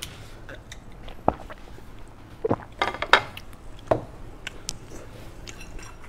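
Sparse light clicks and soft rustling as plastic-gloved hands pull apart a soft sandwich bread.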